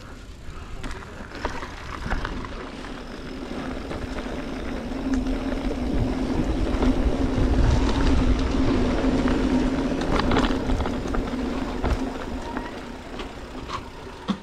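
Mountain bike rolling down a dirt trail: tyre noise with rattles and clicks over the ground and a steady low hum. It grows louder through the middle and eases off near the end.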